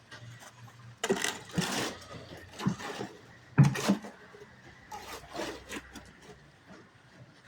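Irregular scraping and knocking of building work, a series of rough strokes with the loudest a knock with a deep thud about three and a half seconds in.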